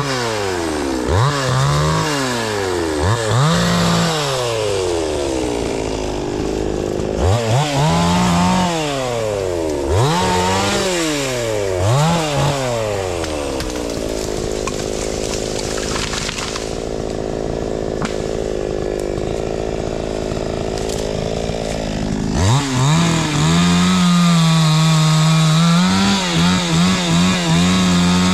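Two-stroke chainsaw revved up and let back down in quick swells about six times. It runs lower for several seconds, then is held at high revs for the last few seconds.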